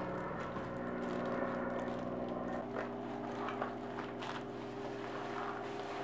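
Cardboard package being torn open and its wrapping handled: crackling, scraping rustles with a few sharp tears in the middle, over steady held background tones that change pitch partway through.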